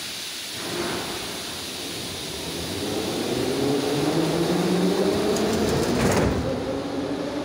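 Moscow metro 81-717/714 'Nomernoy' train pulling away from the platform, heard from inside the car: a steady running rumble, with the traction motors' whine rising in pitch as it gathers speed from about three seconds in. A short run of sharp clicks comes between five and six seconds in.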